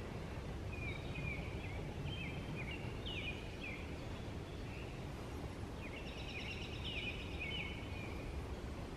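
A songbird singing short phrases of chirps and slurred whistles, with a quick trill about six seconds in, over a steady low rumble of outdoor noise.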